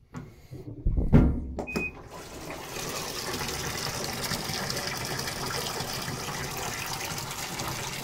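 Haier Encore top-load washer filling, water pouring in a steady rush from the fill inlet into its stainless steel tub. The rush starts about two seconds in, just after a knock and a short high beep.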